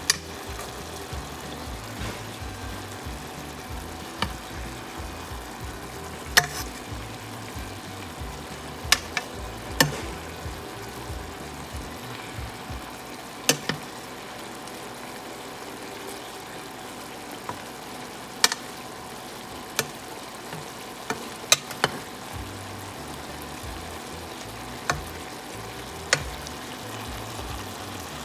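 Chicken adobo bubbling and sizzling steadily in its soy-vinegar sauce in a pan. A metal spoon clinks sharply against the pan about a dozen times as the pieces are stirred and basted.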